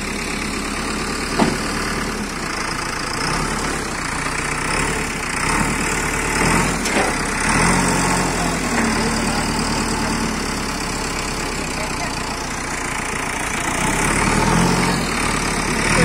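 JCB backhoe loader's diesel engine running steadily, picking up a little about halfway through and again near the end. There is one sharp knock about a second and a half in.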